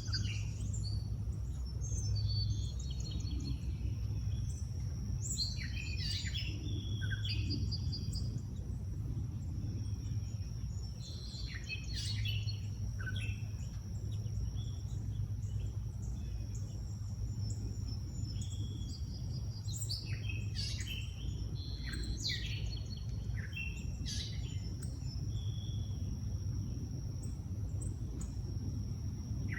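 Several songbirds calling and singing in short, scattered phrases over a constant low background rumble, with a steady high-pitched tone running underneath.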